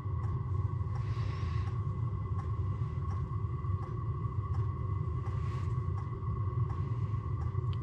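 Wind buffeting an ice-fishing tent: a steady low rumble with two brief rustling swells, about a second in and again around five seconds. Under it run a thin steady whine and faint ticks just under once a second.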